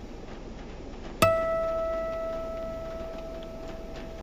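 A single chime struck once about a second in, ringing on with one clear bell-like tone that slowly fades, over a low steady hiss.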